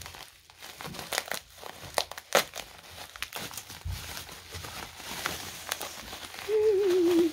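Bubble wrap being crinkled and pulled open by hands, an irregular run of crackles and rustles. Near the end a person makes a short, slightly falling vocal sound.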